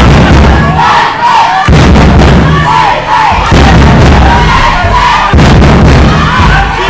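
Crowd of spectators shouting and cheering, loud, with a heavy low thumping that comes back about every two seconds.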